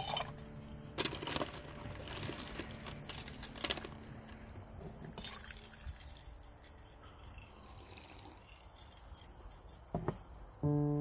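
A metal spoon clinking against a glass jar as coffee is stirred, a few sharp clinks in the first seconds. About ten seconds in, the jar is set down on a wooden table with a knock. A steady high hiss of outdoor ambience runs beneath.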